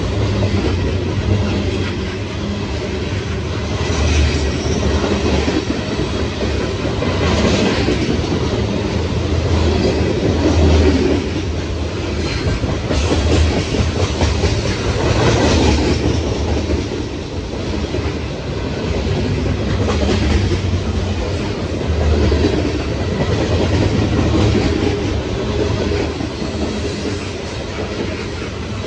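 Loaded CSX coal cars of a freight train rolling past close by: a steady rumble of steel wheels on the rails that swells and eases every few seconds, with repeated clacks as the wheel sets pass.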